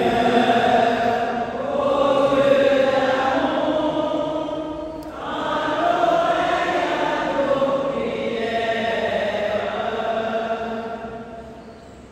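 Congregation chanting a sung refrain of the universal prayer, in two long phrases, the second fading out near the end.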